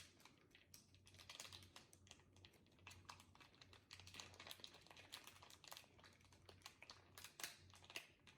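Slime being squeezed and worked by hand, giving a faint, irregular run of small sticky clicks and pops.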